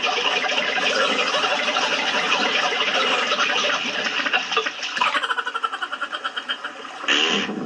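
A dense, busy layer of cartoon sound effects with many short clicks and splashy noise. In the last couple of seconds it turns into a fast fluttering pulse, then a short loud burst near the end.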